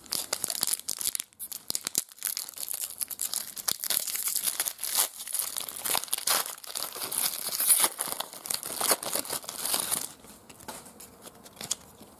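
Foil trading-card pack wrapper crinkling and tearing as it is ripped open by hand. The crackling runs dense and uneven, then dies down about ten seconds in as the cards come out.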